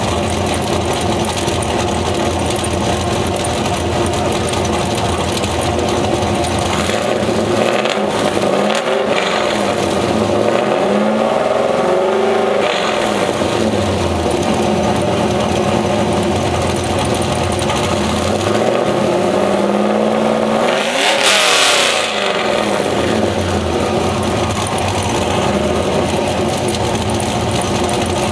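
1998 Chevrolet Camaro Z28's LS1 V8, fitted with an STS turbo (GT67), a 230/224 cam, long-tube headers and a 3-inch exhaust, idling at the tailpipes and blipped three times. The third blip is the biggest, with a short burst of hiss near its peak.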